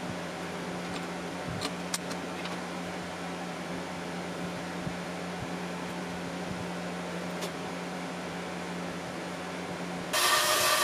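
Steady low hum of shop machinery, with a few light ticks as a scribe marks a brass knife guard held in a vise. About ten seconds in, a vertical band saw suddenly comes in much louder, running and cutting.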